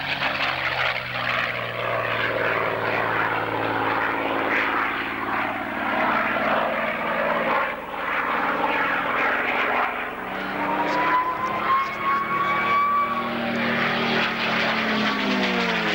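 Single-engine piston fighter's engine running at display power overhead, a steady drone with a thin whine rising briefly past the middle. Near the end its pitch slides down as the aircraft passes by.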